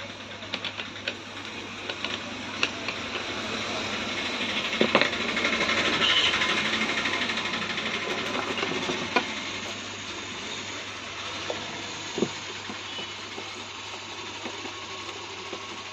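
Scattered metallic clicks and rattles of a saw chain being handled on a chainsaw guide bar while it is fitted and adjusted with a screwdriver. A rushing noise swells up and fades away over several seconds in the middle.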